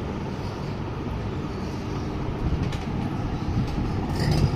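Microwave oven running with a low electrical hum that grows louder about four seconds in; the oven is faulty, sparking inside and not heating.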